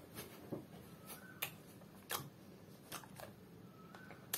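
Areca nut (kuhva) being chewed with the mouth closed: faint, irregular crunching clicks, about six in four seconds.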